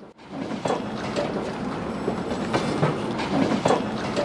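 A train running on rails: a steady rumble with irregular clacks of the wheels, starting just after a brief dip at the beginning.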